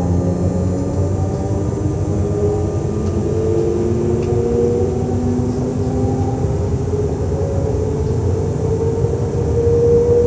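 SNCF Z 20500-series (Z 2N) double-deck electric train's traction and auxiliary equipment humming and whining, with several tones drifting slowly up and down in pitch over a low rumble.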